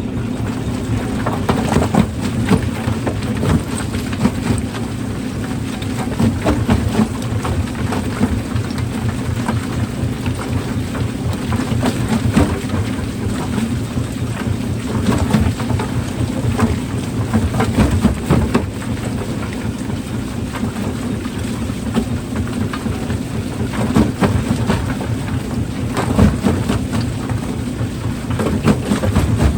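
Rock-crushing machinery running: a steady low mechanical drone with dense, irregular clattering and knocking of stone being broken and tumbling.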